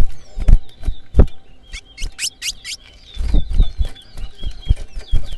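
Chestnut-bellied seed finch (towa-towa) singing in a song race: a burst of sharp high chirps about two seconds in, then a run of quick repeated whistled notes. Low thumps and knocks, loudest near the start, break in between.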